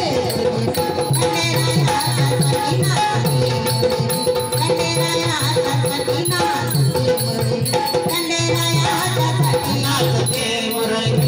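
Marathi devotional folk music of a jagran, with a steady repeating beat and shaken rattle-type percussion.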